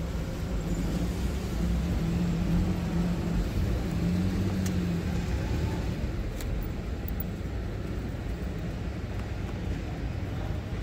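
Royal Enfield motorcycle engine idling steadily.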